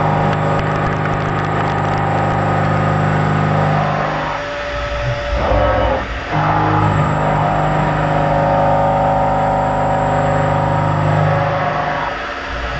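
CNC milling cutter cutting metal: a loud, steady pitched tone with overtones, which breaks off for a moment between about four and six seconds in and then resumes until near the end.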